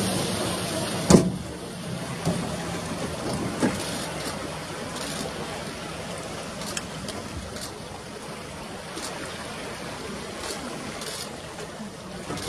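Steady rushing noise of river water and a boat, with a sharp knock about a second in and a few faint clicks after it.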